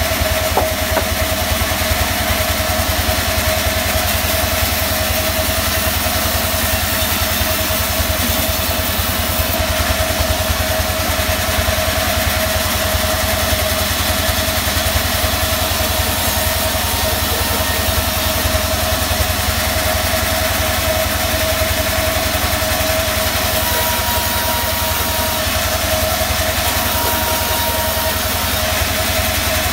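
Band-saw resaw machine running steadily while mahogany planks are fed through its blade: a continuous machine drone with a low, fast-pulsing rumble and a steady mid-pitched hum.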